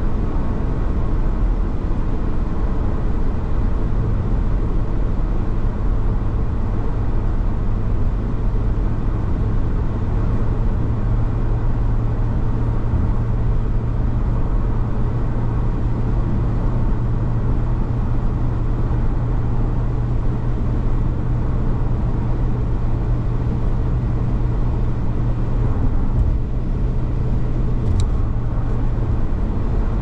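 Steady in-cabin road noise of a car driving on a wet, slushy highway: a low drone of tyres and engine, with a steady low hum that sets in a few seconds in and drops away shortly before the end. A single faint click near the end.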